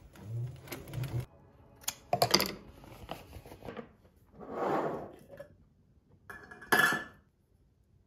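A sewing machine stitching briefly, then hands handling things on a tabletop: a few clicks, a rustle of fabric, and a sharp clack with a short ring near the end as something is set down.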